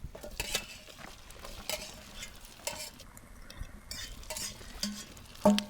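Butter sizzling in a frying pan over a campfire, with a utensil stirring and scraping in the pan every second or so and a louder knock near the end.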